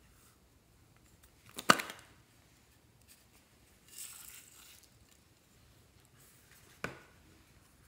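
A sharp plastic click about two seconds in, then a brief soft hiss as star-shaped glitter sequins pour from a small plastic container onto slime in a glass dish, and a second, smaller click near the end.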